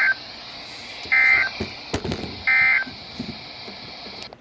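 EAS end-of-message data bursts: short, loud warbling digital tone bursts about 1.4 s apart, the NNNN signal that closes the alert, received over weather radio with a steady static hiss. The hiss drops away near the end.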